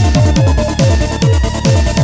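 Bass-boosted electronic trance music: a deep kick drum falling in pitch on every beat, a little over two beats a second, under a repeating synth line and ticking hi-hats.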